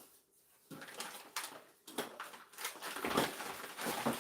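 Plastic packaging crinkling and rustling in irregular bursts as a toy is pulled out of a surprise bag.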